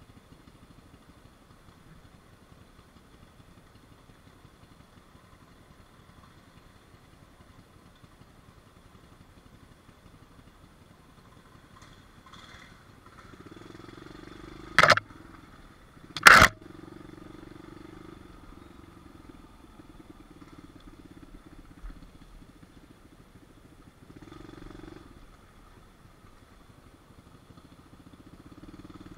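Small pit bike engine running steadily at low throttle, swelling a little now and then. Two loud sharp knocks about a second and a half apart come midway.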